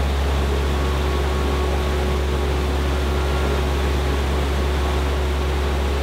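Steady rushing of a mountain stream, an even wash of water noise with a deep rumble and no change in level.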